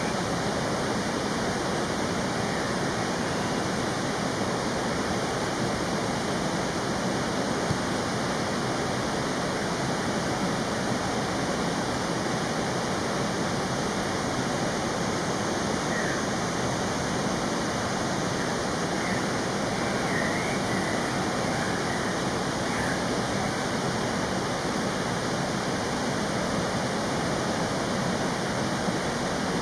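Steady rushing of flowing water, even and unbroken. A few faint short chirps come through it about halfway in.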